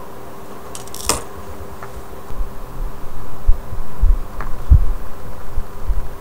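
One sharp click about a second in, then irregular low thumps and rustle as a hand holds a sheet of lined paper close to the microphone, over a steady electrical hum.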